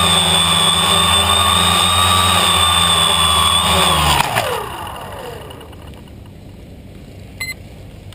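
Small electric motors of a radio-controlled aircraft running with a steady high whine, then shutting off about four seconds in and spinning down with a falling pitch as it sets down on the grass.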